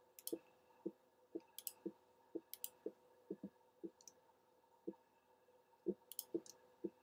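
Faint computer mouse clicking, irregular but about two clicks a second, as edges are picked one after another. Most clicks are soft taps, and a few are sharper, in quick pairs.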